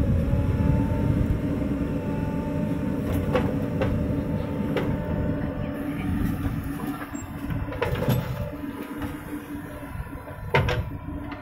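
JCB 3DX backhoe loader's diesel engine running under load with a steady hum as the backhoe digs and swings, with a few sharp knocks from the bucket and soil. The sound grows quieter toward the end.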